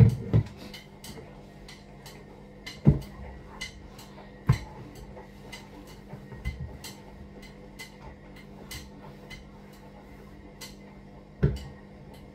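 Kitchen cleanup: a few sharp knocks of things being handled and set down on the worktop, the loudest near the start and about 11 seconds in, over light irregular ticking and a steady low hum.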